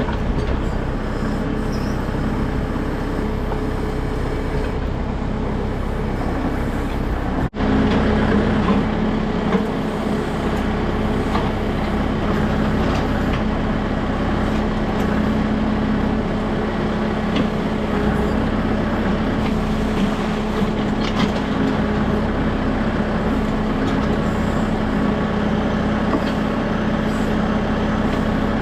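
Kubota M6060 tractor's four-cylinder diesel engine running steadily while it powers a Titan LW-6 backhoe digging out a ditch. About seven seconds in the sound breaks off for an instant, and the engine then runs louder with a steady hum.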